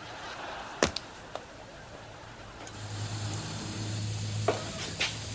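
A few sharp clicks, then a small motor starts running about two and a half seconds in with a steady low hum and hiss, with a couple more clicks over it.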